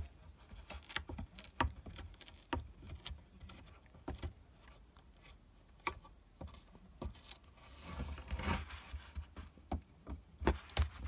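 Akita puppy gnawing a wooden parrot perch: irregular clicks and crunches of teeth on wood, with a longer scraping sound about eight seconds in.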